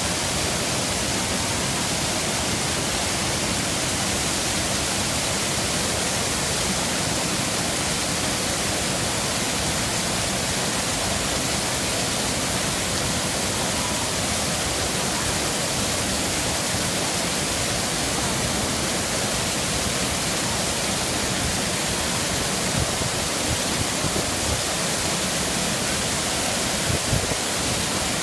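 Water falling down a stone-walled artificial waterfall and over stepped weirs: a steady, even rushing of water.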